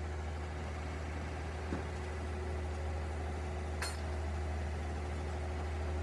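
A machine running with a steady low hum, with a faint tap and then one sharp metallic clink about four seconds in.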